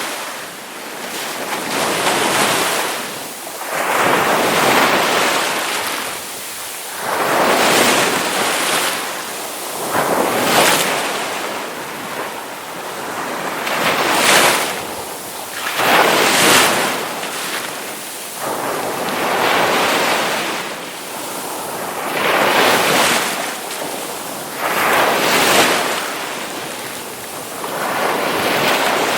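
Ocean waves crashing, the surf swelling and falling away in a new surge every two to three seconds.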